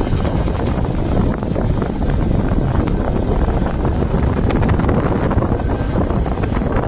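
TVS Sport 110i motorcycle's single-cylinder four-stroke engine running with a dense, rapid ticking clatter. The owner insists the noise is not normal; others have suggested a loose starter motor or the cam chain tensioner.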